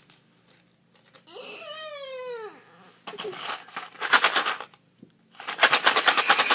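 A boy's disgusted vocal reaction to an earthworm-flavoured jelly bean: a long whine falling in pitch, then a short rough burst and, near the end, a run of rapid rough sputtering noises.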